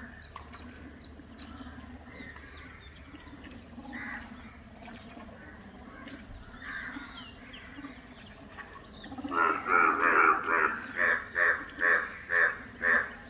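A frog calling in a rapid series of loud, evenly spaced croaks, about two or three a second, starting about nine seconds in. Before that there is only faint background sound.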